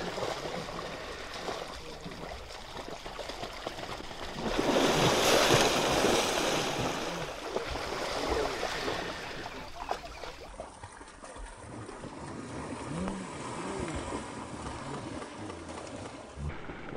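Water churning and splashing as an animal struggles in a pond, mixed with wind noise on the microphone; the splashing is loudest for several seconds in the first half.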